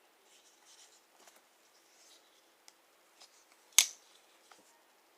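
Faint handling of a Buck 110 Slim folding pocket knife: soft rustles and small ticks, then one sharp click a little under four seconds in.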